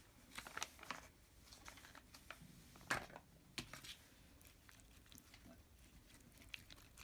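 Mostly near silence, with a few faint clicks and soft crinkling as mayonnaise is applied over a chopped cucumber layer of salad.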